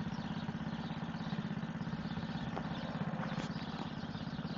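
Small 50cc four-wheeler (ATV) engine running steadily at low speed as the quad is ridden slowly, an even, rapid putter.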